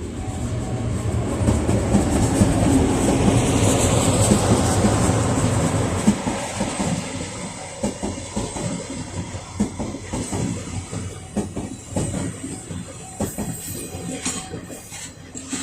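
The Royal Express train passing over a level crossing. A heavy rumble is loudest for the first several seconds. Then the wheels clatter rhythmically over the rail joints as the cars go by, the sound easing off near the end.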